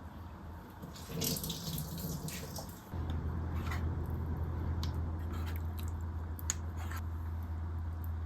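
Water running from a kitchen tap into a sink, with a steady low rush setting in about three seconds in and a few light clinks of dishes.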